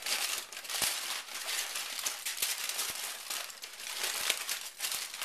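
Aluminum foil crinkling and crackling as it is folded and crumpled around a loaf of bread, a rapid run of small crackles.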